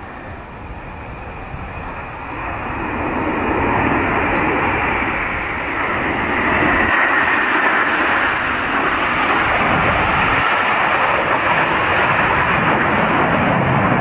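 Aircraft engine noise, a broad rushing roar that swells over the first few seconds as it draws nearer, then stays loud and steady.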